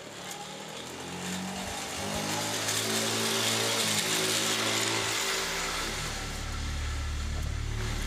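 Motor scooter's small engine running as the scooter rides up close, loudest about three to four seconds in.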